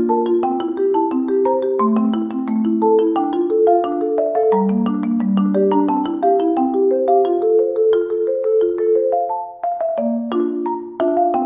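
Background music: a light, bouncy melody of quick struck notes on mallet percussion in a marimba-like tone, briefly thinning out near the end.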